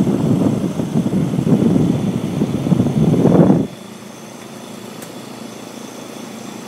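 Trane XL16i 3-ton heat pumps running. For the first three and a half seconds a loud, rough rush of air buffets the microphone. It cuts off suddenly, leaving the units' steady hum.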